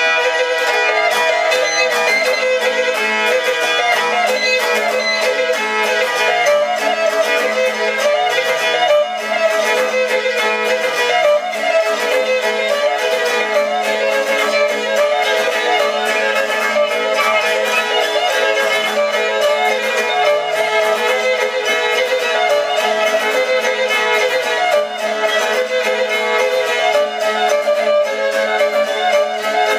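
Pear-shaped Greek lyra played solo with a bow: a lively folk melody over a steady drone, with the small bells on the bow jingling in time with the strokes.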